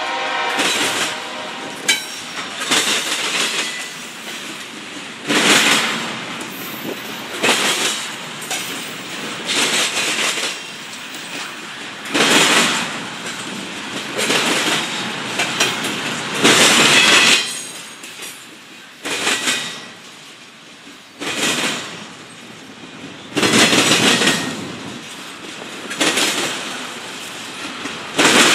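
Double-stack intermodal freight train of well cars rolling past, its wheels clattering loudly in repeated bursts every couple of seconds as the sets of wheels cross the track joints, over a steady rolling rumble. A locomotive horn trails off at the very start.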